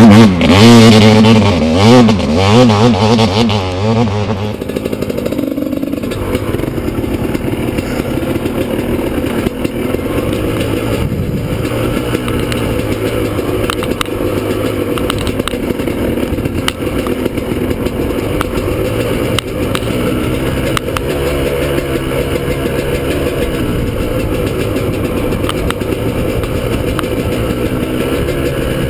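Two-stroke dirt bike engine revving hard as the bike climbs a dusty hill, its pitch wavering with the throttle. About four seconds in, it gives way to a steadier, quieter run heard from on board a 1994 Suzuki RM250 with an FMF Fatty pipe, the engine note rising and falling over a bumpy trail with light rattles.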